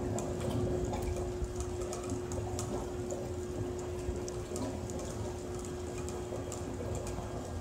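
Water churning and gurgling inside a water-filled acrylic buoyancy-lift column as its float containers move. Light clicks run through it, over a steady hum.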